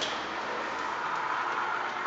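Yamaha electric-assist bicycle's drive motor running with a steady, rough whirring noise, the abnormal motor noise the bike is being shown for.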